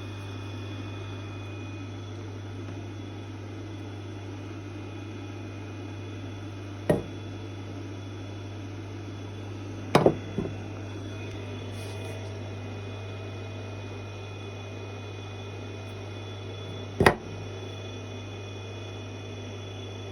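Grinding machine running with a steady low hum, broken by sharp knocks three times, about a third in, halfway and near the end.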